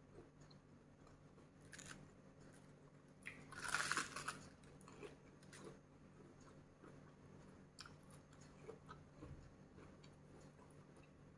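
Close-up chewing with small wet mouth clicks, and a crisp crunch of raw cabbage leaf about four seconds in, the loudest sound.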